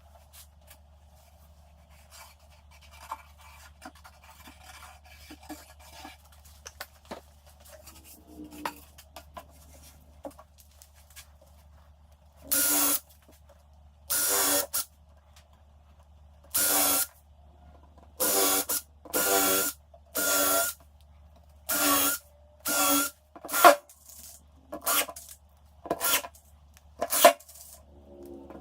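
Power drill run in a dozen short bursts, each about half a second to a second long, as screws are driven into plywood. Before the bursts start there are faint clicks of wood and tools being handled.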